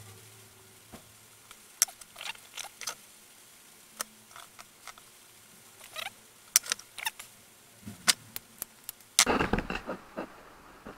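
Small clicks and scratchy scrapes of fingers and pliers handling wires, plastic connector clips and tools on a wooden workbench, with a louder burst of handling noise about nine seconds in.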